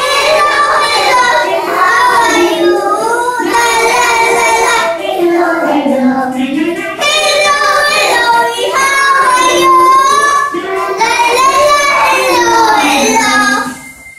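A group of young children singing a hello song together in chorus, stopping near the end.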